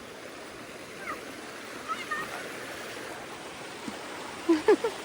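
River water running steadily, with a few short bits of voice near the end.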